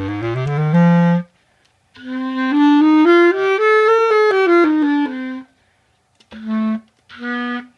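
Bass clarinet played through a 3D-printed mouthpiece: a short run of low notes rising in steps, a pause, then a phrase stepping up and back down, ending in two short separate notes. The printed mouthpiece works and gives a clarinet sound.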